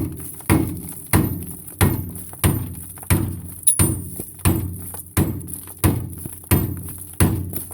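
Repeated heavy hammer blows on metal truck parts, a dull thud about every two-thirds of a second, struck at a steady pace throughout.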